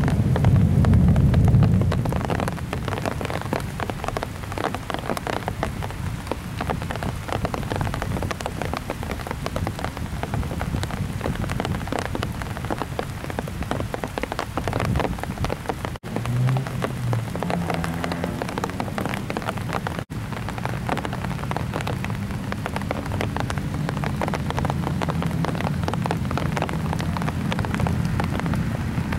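Heavy summer rain falling in a dense patter of drops, with a low rumble of thunder in the first two seconds that dies away.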